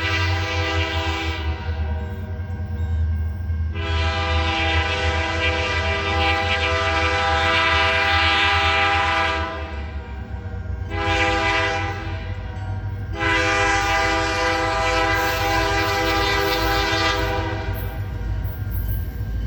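Diesel locomotive's air horn sounding a long-long-short-long pattern, the grade-crossing signal. It starts with the end of one long blast, then gives a long blast, a short one and a final long one, over the steady low rumble of the locomotive.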